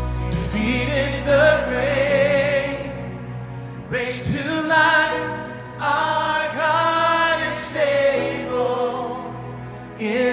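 Gospel worship song: singers holding long notes with vibrato over a steady instrumental backing.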